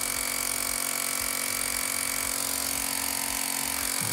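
Xiaomi 1S portable electric air compressor running steadily, pumping air freely out of its hose with no tyre attached: an even mechanical drone with a constant hum.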